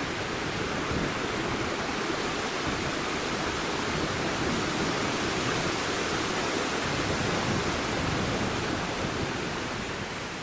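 Shallow stream running over rocks and stones: a steady rush of water with no breaks.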